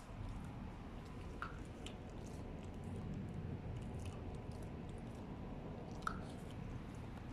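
West Highland terrier chewing and mouthing close to the microphone, a steady wet rustle with a few light clicks.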